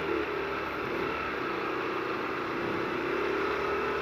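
Yamaha YBR Factor 125's single-cylinder engine running steadily while riding, with the even hiss of tyres on a wet, flooded road.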